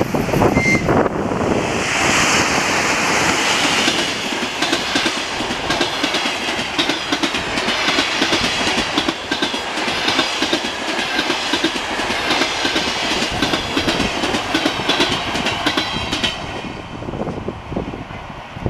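Passenger train passing close by: the ChS7 electric locomotive goes past first, then a long string of coaches with a steady, rapid clatter of wheels on the rails. The clatter fades near the end as the last coach moves away.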